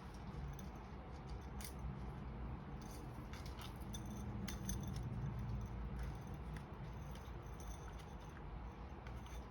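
Faint, scattered light clicking and jingling of rhinestone trim being handled and draped through a gift basket, over soft handling rumble.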